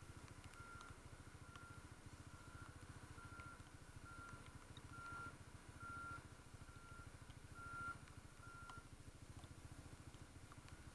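A single-pitched electronic beep repeating a bit under twice a second, stopping near the end, over a faint low engine rumble.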